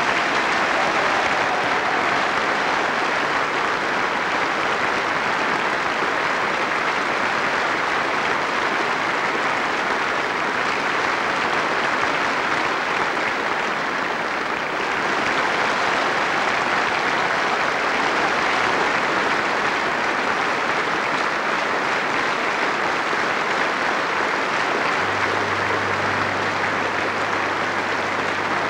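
A large hall audience clapping steadily in a long ovation, easing slightly about halfway and then swelling again.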